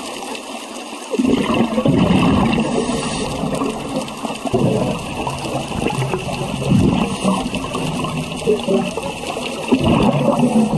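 Scuba diver's exhaled bubbles bubbling past an underwater camera, swelling in surges every few seconds over a steady underwater hiss.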